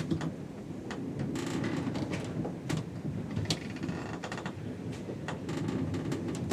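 Below-deck ship ambience: a steady low rumble with scattered knocks and clicks, and creaking about one and a half seconds in and again about four seconds in.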